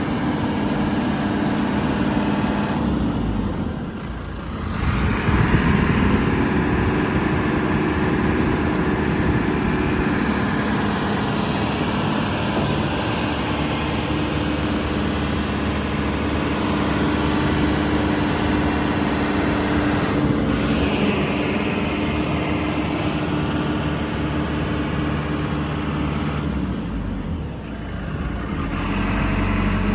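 Diesel engine of a JCB 3CX backhoe loader running steadily. It dips briefly twice, about four seconds in and near the end, then picks back up with a rise in pitch.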